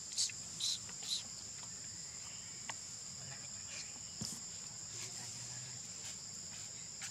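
Steady high-pitched chorus of insects, a continuous drone, with a few short high chirps in the first second or so.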